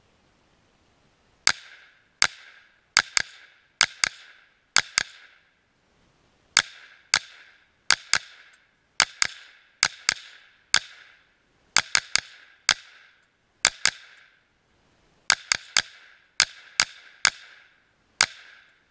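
.223 rifle firing about thirty rounds in quick, irregular strings, the shots sometimes only a fraction of a second apart. Each is a sharp crack with a short ringing tail. The shooting begins about a second and a half in.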